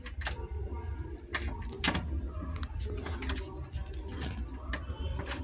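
A door's handle and lock clicking and rattling, about eight separate clicks and knocks, as someone tries to open a locked door.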